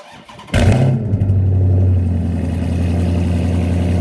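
Chrysler 300 SRT's 392 Hemi V8 starting up through catless mid pipes: a brief crank, then it fires about half a second in with a quick rev flare and settles into a loud, steady idle.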